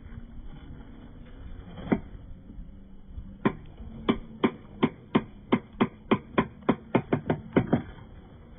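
Lato-lato clacker balls knocking together in a regular run of sharp clacks, about three a second and quickening as the swing builds. A single clack comes shortly before the run starts.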